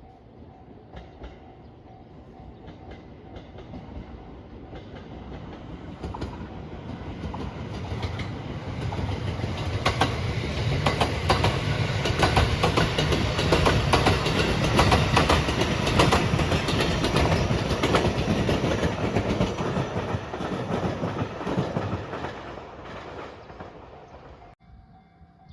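Train passing over a level crossing: the rumble builds, is loudest in the middle with rapid wheel clicks over the rail joints, then fades. A level-crossing bell rings faintly at the start, and the sound cuts off suddenly near the end.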